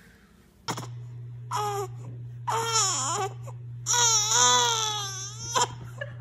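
Young baby crying in a series of short wails, the longest about four seconds in, over a steady low hum.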